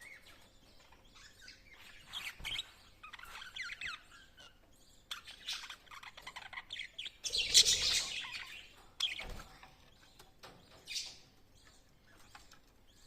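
Pet lovebirds chirping in irregular bursts of short, high calls, loudest a little past halfway.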